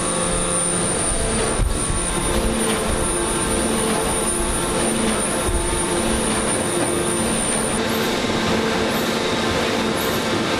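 Four-hammer radial forging machine running while it forges a red-hot titanium bar: a steady, loud, dense industrial din with a few held tones in it.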